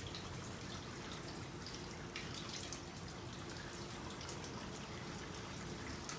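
Faint scattered drips and small ticks from basket weaving with wet, soaked weaving material, over a steady low hum.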